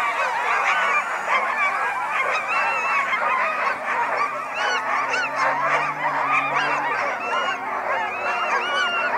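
Many sled dogs yelping and barking together in a dense, continuous chorus of excited high calls, with a faint low steady hum underneath.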